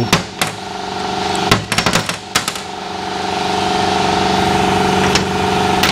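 Metal engine parts clicking and clanking as they are handled and lifted off, several sharp knocks in the first two and a half seconds, over a steady machine hum of several even tones that swells gradually louder through the middle.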